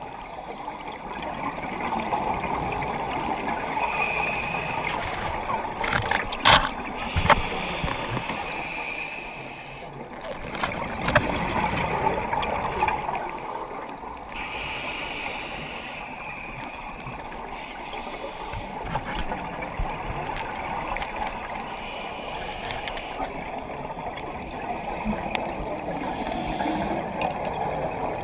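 Scuba regulator breathing underwater: a hiss on each inhale and a gurgling rush of exhaust bubbles on each exhale, coming round every several seconds. A few sharp clicks come about six and eleven seconds in.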